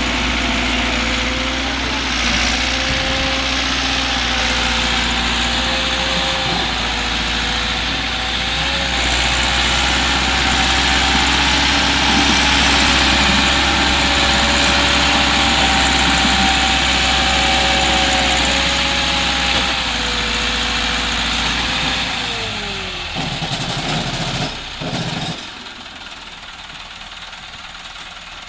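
Massey Ferguson 385 tractor's diesel engine running hard at steady high revs under heavy load, hauling a fully loaded trolley uphill. Near the end the engine note falls and drops to a much quieter low-speed run.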